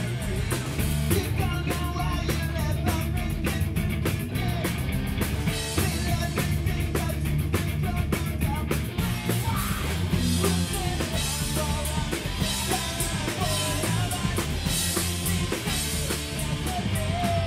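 Live rock band playing, with electric guitars, electric bass and a drum kit keeping a steady beat, and a singer's voice over them.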